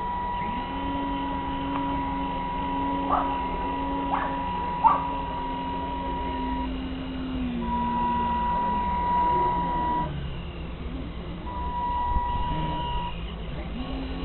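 RC model boat heard from a camera mounted on its deck: a steady high-pitched electronic tone that breaks off and comes back several times, over a lower motor whine that shifts in pitch, with a few light knocks in the first five seconds.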